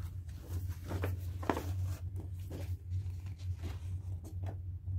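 Folded paper poster being unfolded and handled: a run of irregular paper rustles, over a steady low hum.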